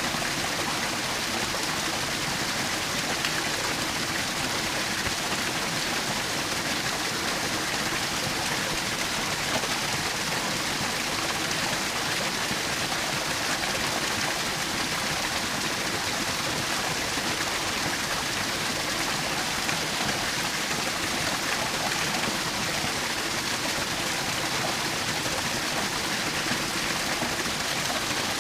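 Small forest waterfall splashing and rushing steadily, an even hiss of falling water.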